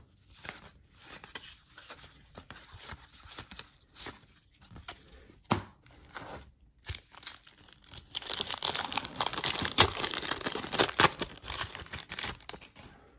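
Light rustles and taps as trading cards are handled and a pack is lifted from its cardboard box. Then, from about two-thirds of the way in, the crinkling, tearing noise of a 1991-92 Score hockey card pack's wrapper being ripped open by hand.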